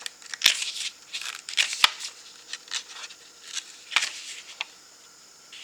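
Pages of a paper booklet being turned and flipped: a run of paper rustles, with sharper paper snaps about half a second, two seconds and four seconds in.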